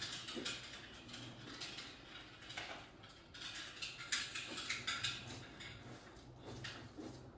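Light clicking and clattering of small hard objects being handled, scattered irregularly throughout, over a faint low hum.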